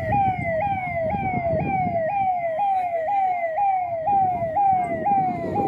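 Ambulance's electronic siren wailing in a fast repeating pattern, about three falling sweeps a second, each snapping back up to the top, over a low background rumble.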